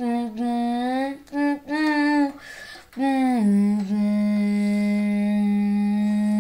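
A child's voice singing wordless notes: a few short gliding notes, then one long steady note held for about three seconds.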